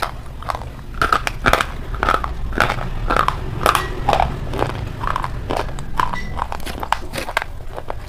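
Close-miked biting and chewing of brittle white chalk sticks: sharp, irregular crunches and crackles, a few each second, with wet mouth sounds between them.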